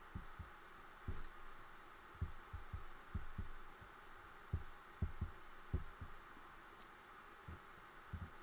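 Faint, irregular soft thumps and knocks, about a dozen, as hands spread fabric glue and press glued fabric onto a book cover on a work table. A few light clicks come in about a second in and again near the end, over a steady faint hum.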